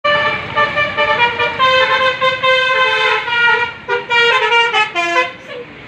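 Bus telolet horn, a Basuri multi-tone air horn, playing a tune of short changing notes, sometimes several at once, until it stops about five and a half seconds in.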